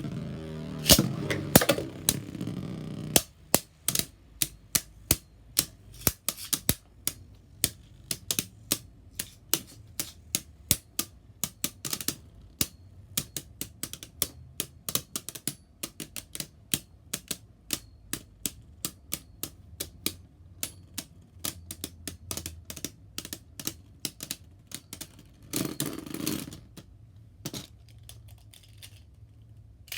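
Beyblade Burst spinning tops battling in a plastic stadium: a run of sharp clicks as the tops strike each other and the stadium walls, several a second, thinning out in the last few seconds.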